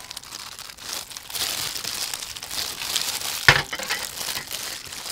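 Plastic crinkling and rustling as seasoning is shaken from a packet over raw chicken drumsticks in a metal tray, with one sharp click about three and a half seconds in.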